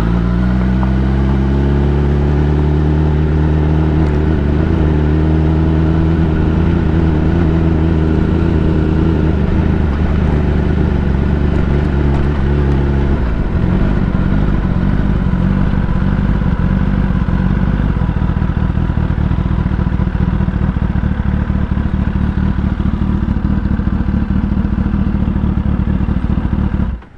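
Kawasaki ZX-10R's inline-four engine running, its pitch climbing slowly for about thirteen seconds, then dropping to a lower, steady, pulsing note. It stops suddenly near the end.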